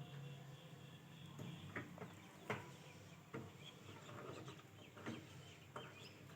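Near-quiet room with a few faint, scattered clicks and faint, high, chirping calls in the background.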